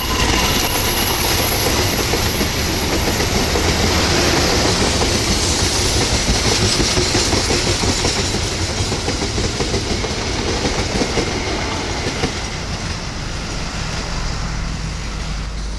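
Passenger train coaches rolling past at speed, wheels clattering rhythmically over the rail joints. The noise eases over the last few seconds as the end of the train draws away.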